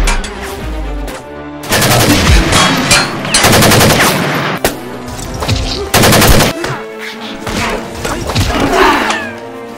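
Rapid automatic gunfire in bursts, the longest about two seconds in and a short one about six seconds in, over background music.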